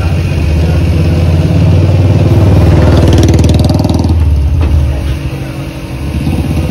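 Air compressor feeding a paint spray gun, running with a steady low engine-like drone. A louder hiss with a fast flutter swells and fades between about two and four seconds in.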